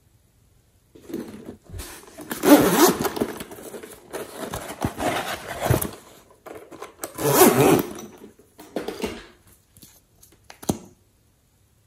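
Hands handling and opening a small plastic makeup tube, with irregular scraping and rubbing sounds and a few sharp clicks. The loudest stretches come about two and a half and seven and a half seconds in, and a single sharp click comes near the end.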